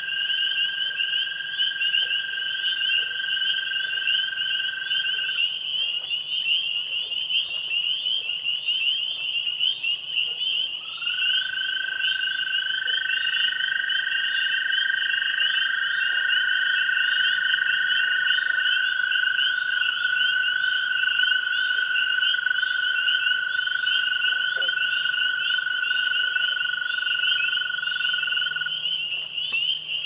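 Spring frog chorus: spring peepers calling in a dense, fast, high-pitched peeping, with long steady trills from other frogs over it. One trill stops about five seconds in, and several overlapping trills start about eleven seconds in and run until near the end.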